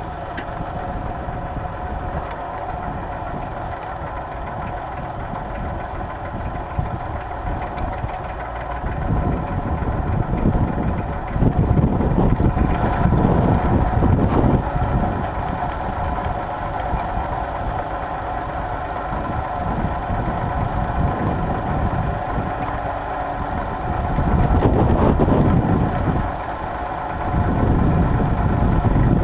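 Tractor engine running steadily under ploughing load, its note unchanging, with spells of louder low rumble about a third of the way in and again near the end.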